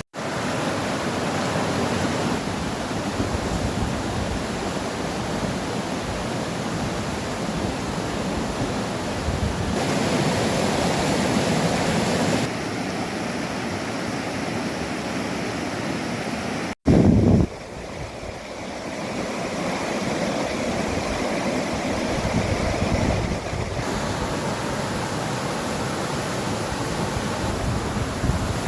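Strong wind blowing and buffeting the microphone, a steady rush of noise that swells and eases. A short, much louder gust hits the microphone about halfway through.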